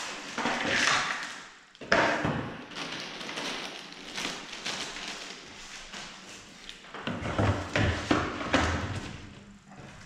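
Ravensburger cardboard jigsaw pieces pattering and clicking as they are poured out of a plastic bag and spread by hand across a tabletop, with the bag rustling. A few knocks and thuds from the cardboard puzzle box being handled and propped up, the sharpest about two seconds in and more between about seven and nine seconds.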